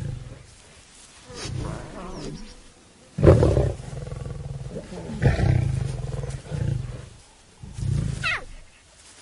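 Lions growling and snarling in a squabble over food, as hungry cubs try to take a meal from a young male lion. The sound comes in several rough bursts, the loudest about three seconds in, with a high falling cry near the end.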